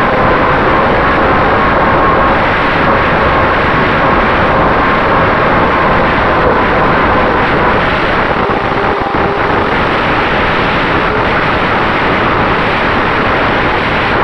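Steady rush of air over a Finwing Traveler FPV plane's onboard camera in flight, with the faint, steady whine of its electric motor and propeller underneath.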